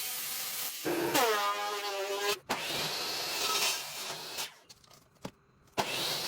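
Woodworking power-tool sounds in short cuts: a hissing rub, then about a second in a motor's whine that falls in pitch and settles. More hiss follows, broken by sudden drops to near silence.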